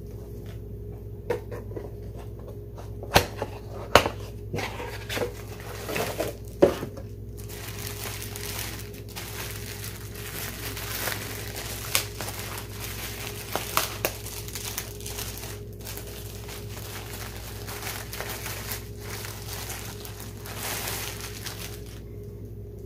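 Plastic wrapping crinkling and tearing as a t-shirt pack is opened, with a few sharp snaps in the first seven seconds, then continuous rustling of plastic and fabric as the shirt is pulled out.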